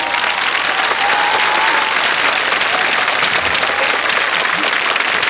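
Large stadium crowd applauding steadily, a dense sustained clapping with a few raised voices over it.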